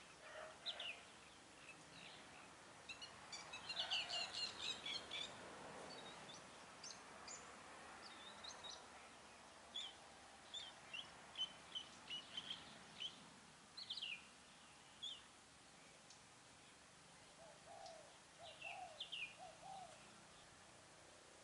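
Small birds chirping in many short, high calls, faint and scattered, busiest around four seconds in and again in the middle, with a short run of lower notes near the end.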